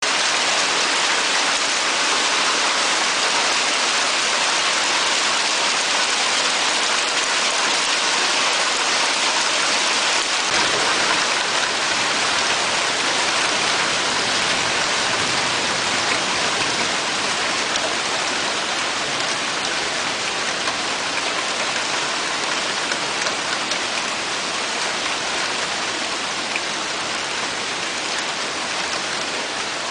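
Hailstorm: hail and rain pelting down in a dense, steady rush that eases slightly over the last several seconds.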